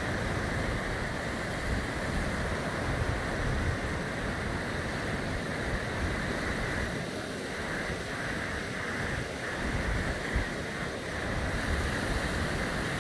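Small waves breaking and washing up a sandy beach in a steady rush of surf, with wind gusting on the microphone.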